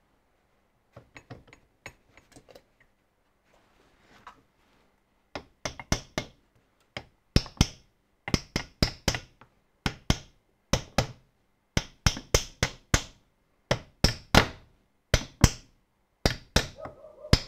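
Small hammer tapping a part home on the spindle of a semi-universal dividing head, metal on metal. A few light taps come first, then sharper, regular taps from about five seconds in, often in quick groups of two or three.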